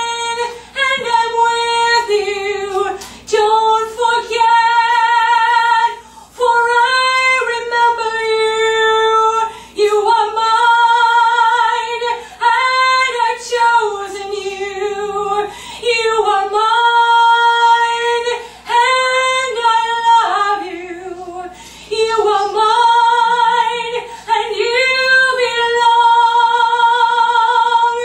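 A woman singing solo and unaccompanied, a spontaneous worship song: long held notes with vibrato in short phrases, broken by brief pauses.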